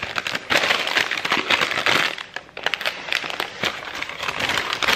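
Gift wrapping and packaging crinkling and rustling as items are handled and unpacked by hand, with a brief lull about halfway through.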